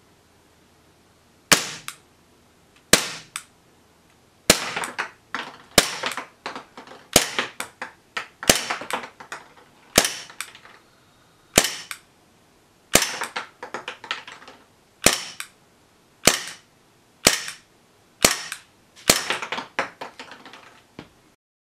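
Well G197 gas blowback airsoft pistol fired about fifteen times, single shots a second or so apart. Each shot is a sharp crack followed at once by the clack of the slide cycling back.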